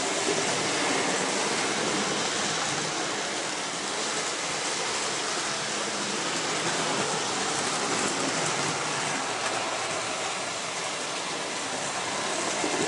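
Hornby OO-gauge model trains running on the layout track: a steady whir of small electric locomotive motors with wheels rattling over the rails.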